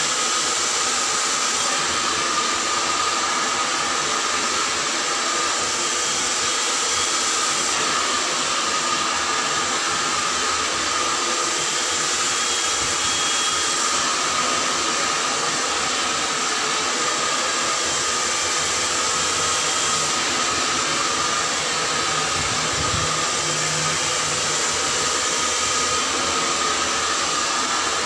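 Handheld hair dryer running steadily while blow-drying hair: a constant rush of air with a steady whine.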